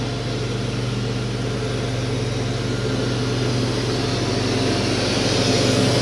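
An engine running at a steady speed, an even low hum with a hiss that grows a little louder toward the end.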